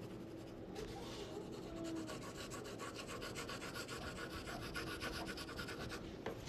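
Pencil shading on paper: quick back-and-forth strokes scratching in a fast, even rhythm, starting about a second in.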